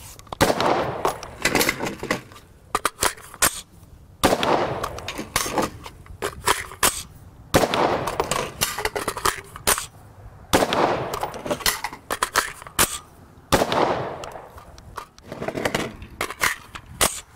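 AR-15 rifle fired single shots about three seconds apart, each crack followed by a fading echo, with the clicks and clacks of magazine changes between shots. Each magazine holds one round, to check that the tuned adjustable gas block cycles the rifle fully and locks the bolt back.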